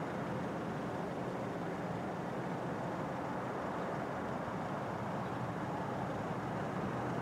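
Steady, even rumble of distant vehicles, with a faint low hum underneath.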